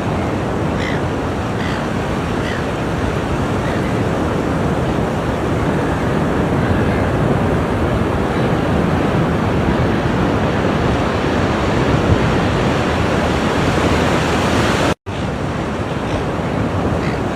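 Ocean surf washing ashore as a steady, dense rush of noise, broken by a split-second gap of silence about fifteen seconds in.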